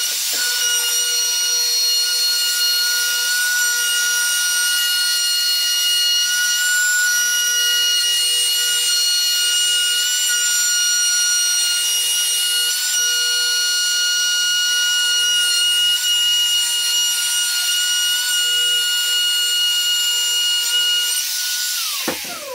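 Electric router running at a steady pitch while cutting a rabbet down a cabinet side for the back panel, winding down with a falling whine near the end.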